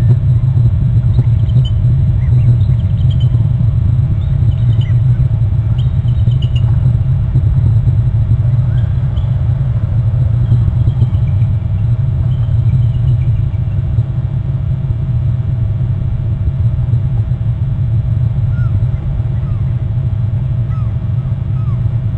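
Steady low rumble throughout, with faint short chirps now and then above it.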